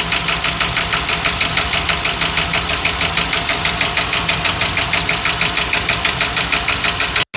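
Ford 7.3-litre gasoline V8 idling with a loud, even knock repeating rapidly. The engine has a cylinder misfire (code P0301), and the mechanic says the knock could be a connecting rod, piston, wrist pin, valve or broken crankshaft. The sound cuts off suddenly near the end.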